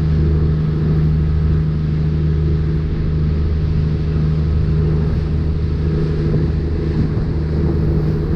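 Boat engine running steadily at constant speed, a loud, even, deep drone.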